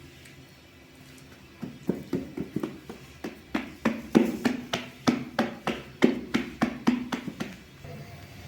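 A run of sharp, hollow-sounding knocks, about three a second, starting a second and a half in and stopping shortly before the end, like hand or kitchen-tool strokes on a wooden surface.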